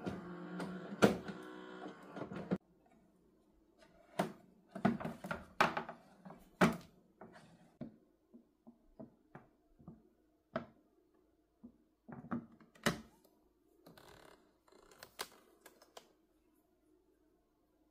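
Philips automatic espresso machine running its start-up rinse with a steady mechanical hum, which cuts off abruptly about two and a half seconds in. After that come scattered hard plastic clunks and knocks as the drip tray and coffee-grounds container are pulled out and handled.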